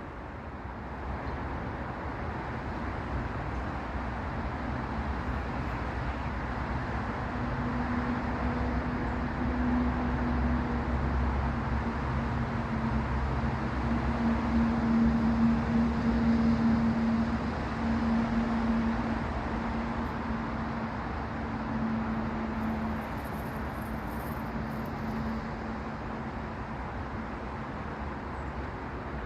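Steady traffic noise with a low engine hum that grows louder through the middle and fades again.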